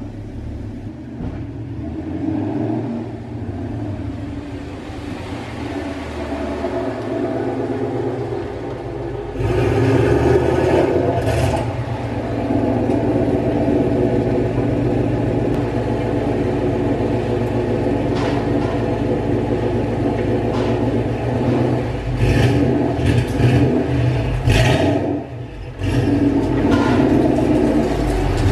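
Ford 5.0 Coyote V8, taken from an F-150 and swapped into a 2005–2010 Mustang GT, running as the car drives up and pulls in close. It gets clearly louder about nine seconds in, with a few short louder pulses of throttle near the end.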